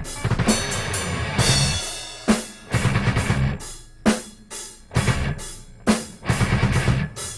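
Death metal instrumental produced in FL Studio, with a drum kit of rapid bass-drum hits, snare and cymbals. It plays in stop-start bursts of a second or two, each broken off by a short gap.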